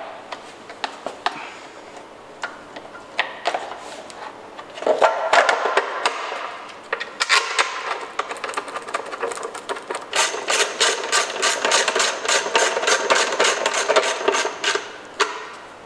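Plastic timing belt cover being fitted onto a Ford 1.8 TDCi diesel engine by hand, with knocks and clicks of hard plastic against the engine. From about ten seconds in there is a fast, even run of clicks, about four a second.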